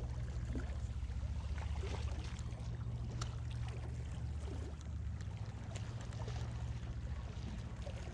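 Water lapping and trickling among rocks at the sea's edge over a steady low rumble, with scattered faint ticks.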